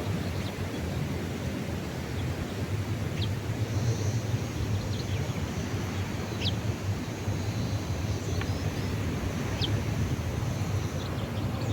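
Outdoor ambience: a steady low rumble and hiss, likely wind and distant traffic, with a few short high chirps from small birds scattered through it.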